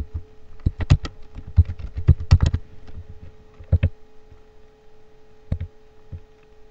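Computer keyboard typing: a quick run of keystrokes in the first few seconds as a word is typed, then a few separate clicks near the end, which are mouse clicks. A faint steady hum lies underneath.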